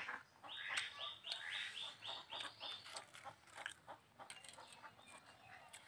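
A bird calling faintly: a quick run of about eight short, high notes, about three a second, that stops about halfway through. Faint clicks and taps sound around it.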